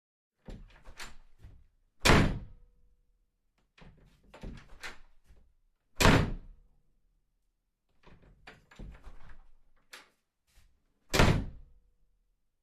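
A door opened and shut three times, about every four seconds: each time the handle and latch click and rattle for a second or so, then the door closes with a loud thud.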